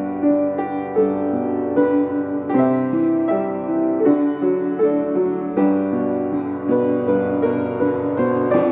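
Instrumental keyboard music with a piano sound: chords and a melody of notes that change a couple of times a second, with no singing. A ringing stroke comes in just before the end.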